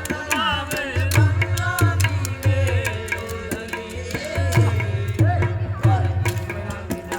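Rajasthani Manganiyar folk music: a voice sings an ornamented, gliding melody over a steady hand-drum beat, with sharp clicking percussion throughout.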